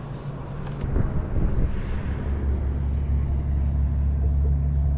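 Small outboard motor on a jon boat running at a steady speed, a constant low hum, pushing the boat along. It comes in about a second in.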